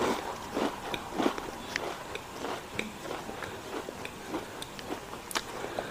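A person biting and chewing a Britannia 50-50 Maska Chaska salted cracker biscuit close to the microphone, with irregular crisp crunches.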